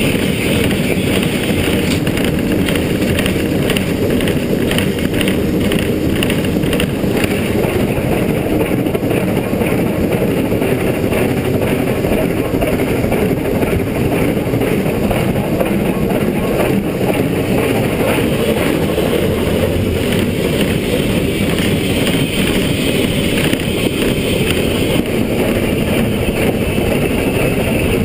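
LNER K4 No. 61994, a three-cylinder 2-6-0 steam locomotive, working uphill under way: a rapid, even run of exhaust beats over the loco's running noise.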